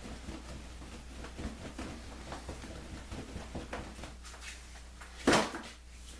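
Toiletries being handled on a bathroom counter: a run of light clicks and taps, then one louder thud about five seconds in.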